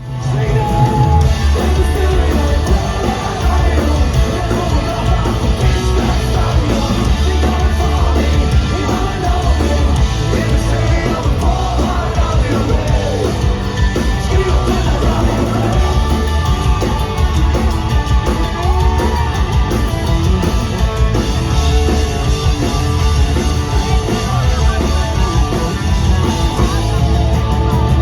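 A rock band playing loud live music with yelled singing over a heavy, pounding bass.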